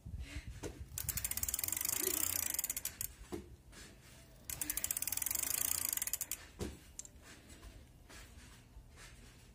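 Bicycle rear freewheel ratcheting in two bursts of fast clicking, each about two seconds long, swelling and then fading. The wheel spins briefly each time the magnet passes the reed sensor and sets off the motor. Between the bursts there are a few soft knocks.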